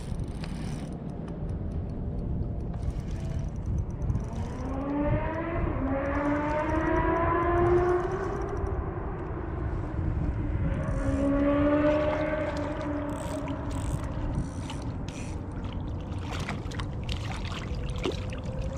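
A siren wailing, its pitch rising and falling slowly in two long sweeps, over a steady low rumble of wind on the microphone. Near the end come sharp clicks and light splashing as a small fish thrashes at the water's surface.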